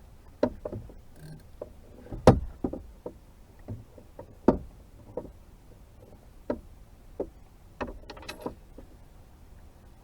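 A series of irregular knocks and clunks of gear being moved about and set down in a boat. The two loudest come about two and four and a half seconds in, with a quick cluster near the end.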